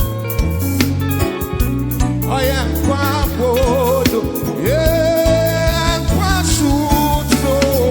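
Gospel praise music: a voice singing a wavering, melismatic line over a steady bass line, with one long held note around the middle.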